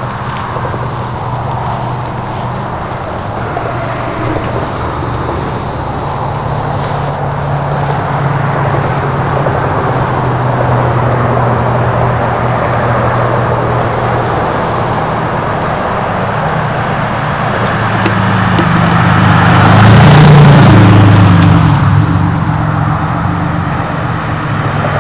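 Two Oldsmobiles, a 1994 Cutlass Supreme and a 1969 Toronado, driving toward the microphone on a road: engine sound builds steadily, the first car passes close about twenty seconds in with its engine note dropping in pitch as it goes by, and the second car's engine grows louder again near the end.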